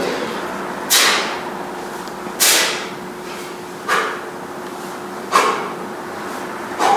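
Sharp hissing exhales, five of them about a second and a half apart, one with each rep of a one-arm kettlebell swing as the hips snap the bell up.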